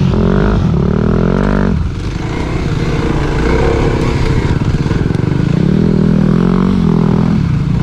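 Dirt bike engine pulling hard in first gear up a muddy hill, revs climbing, dropping briefly about two seconds in, then rising again near the end.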